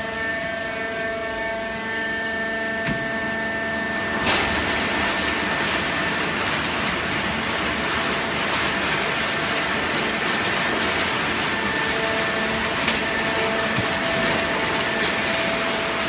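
Fully automatic horizontal hydraulic baling press running: a steady hum with several whining tones, joined about four seconds in by a loud, continuous rushing noise.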